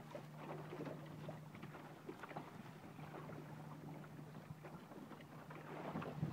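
Water lapping and splashing against the hull of a small sailboat under way, a run of soft irregular splashes, with a faint steady low hum underneath.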